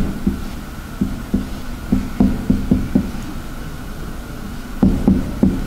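Marker writing on a whiteboard: a run of short, sharp strokes, each a brief low squeak or knock against the board, about nine in quick succession, then a pause, then three more near the end. A faint steady hum runs beneath.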